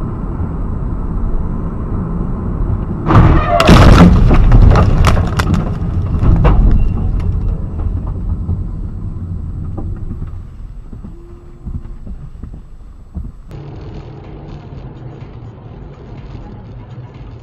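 Dashcam recording of road noise inside a moving car, then about three seconds in a loud crash as the lorry ahead hits the roadside in a cloud of dust, with a clatter of debris striking for a few seconds before it fades. Near the end, steadier, quieter road noise from another car.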